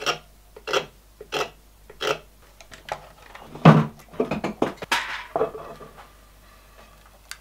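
Hand carving gouge pushed through a hardwood board, cutting a textured surface: a short, crisp chip-cut about every two-thirds of a second. Near the middle comes a louder knock, then a quick cluster of scrapes and clatters.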